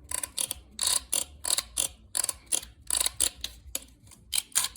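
The rubber dampers of an Audi A6 C5 fuel pump basket creak and grate in a rapid, irregular series of short scrapes as the basket is pushed and rocked. The rubber has hardened and worn with age, and this is the cause of a creak heard in the cabin when pulling away.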